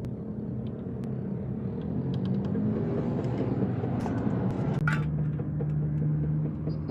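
A motor running with a steady rumble and hum whose pitch shifts partway through, with scattered clicks and one sharp knock about five seconds in.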